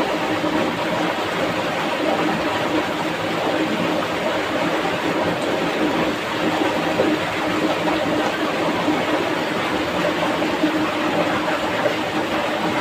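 Swift, muddy small river rushing over rocks and through a rapid: a steady, unbroken noise of fast-flowing water.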